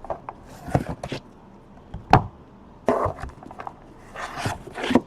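Trading card boxes and packs being handled: a few sharp knocks and clicks, and a longer rustle of wrapping or cardboard near the end.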